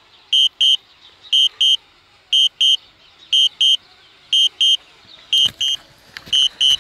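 DJI flight app warning tone sounding while the DJI Spark drone auto-lands: short, high electronic beeps in pairs, about one pair a second. A few faint knocks come near the end.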